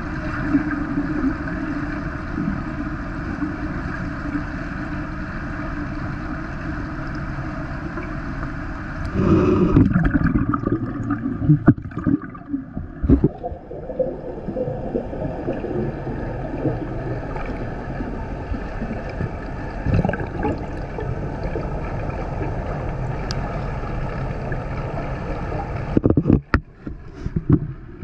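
Muffled, steady underwater rumble of pool water heard through a submerged camera, with louder bursts of bubbling and water movement about nine seconds in and again near the end.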